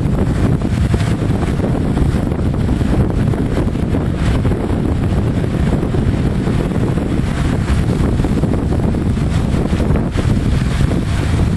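Wind buffeting the camera microphone: a loud, steady low rumble with no other distinct sound.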